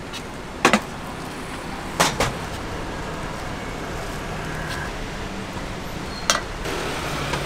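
Knife chopping on a wooden cutting board: a few sharp knocks, a pair just under a second in, another pair about two seconds in and one more near the end. Steady street-traffic noise runs beneath.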